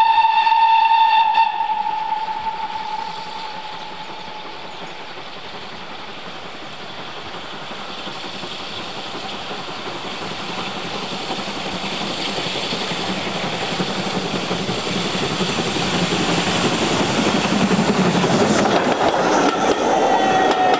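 A steam locomotive's whistle sounds one steady note that stops about a second and a half in. Then the locomotive's steam hiss and running noise drop away and grow steadily louder again as it approaches.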